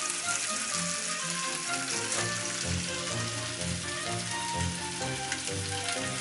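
Chicken thighs sizzling and crackling steadily in olive oil in a frying pan, with background music underneath.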